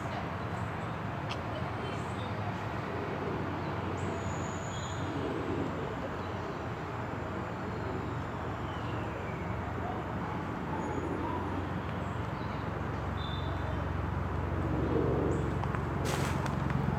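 City street ambience: a steady hum of traffic with a few short high chirps and a brief falling whine.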